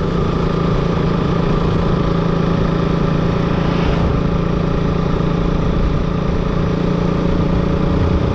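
Motorcycle engine running at a steady, unchanging pitch.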